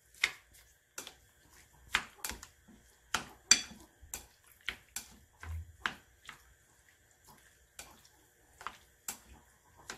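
Spatula stirring raw chicken pieces and sauce in a ceramic bowl: irregular clicks and taps as it knocks and scrapes against the bowl, about one or two a second.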